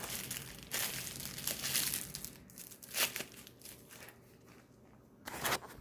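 Packaging crinkling and rustling as a parcel is unwrapped and handled, with sharper crackles about 3 seconds in and near the end.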